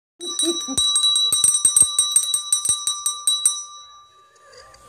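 A small bell struck rapidly, about a dozen rings at roughly five a second, then left ringing out and fading.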